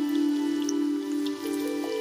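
Soft background music with long held notes, over a light crackle of onions and green chillies frying in oil in a nonstick wok.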